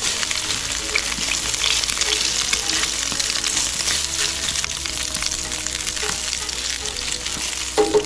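Eggs frying in hot fat in a cast-iron skillet on a propane camp stove, a steady crackling sizzle with many small pops as they are stirred and broken up in the pan.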